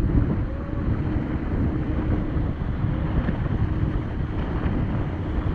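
Wind buffeting the action camera's microphone and water rushing past a towed banana boat at speed, a loud steady rush with a faint even hum underneath.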